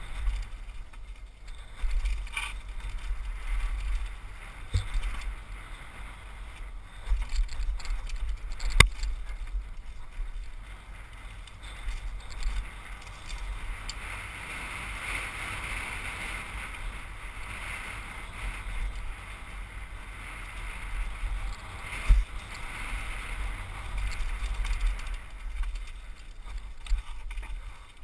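Trek Session 8 downhill mountain bike riding fast down a rocky dirt trail: tyres rumbling on dirt, the bike rattling over bumps, and wind buffeting the helmet-mounted microphone. Sharp knocks from the bike hitting rocks and roots, the loudest about nine seconds in and another just after twenty-two seconds.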